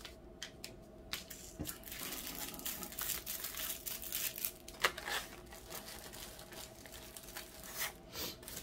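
Small plastic bags of diamond-painting drills crinkling and rustling as they are handled and sorted, with irregular crackles.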